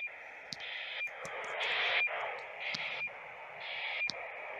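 Radiosonde telemetry on 402.700 MHz received at normal strength through a handheld radio's speaker: a burst of hissy data noise about once a second, each ending in a brief cut-out with a short high beep.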